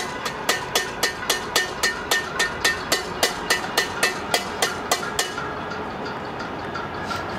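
A cooking pot banged close by in a cacerolazo protest: ringing metal clangs at about four a second, stopping about five seconds in. Under it runs a steady clatter of many more pots banged in the distance.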